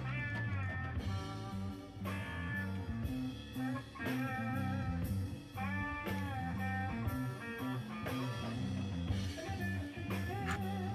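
Background music led by electric guitar, with bending lead notes over a steady bass line.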